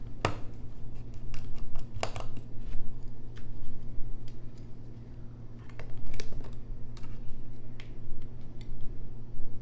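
Scattered small clicks and scrapes of a precision tri-point screwdriver and metal tools working the tiny screws of an iPhone X's LCD and battery shield. The clicks come irregularly, over a steady low hum.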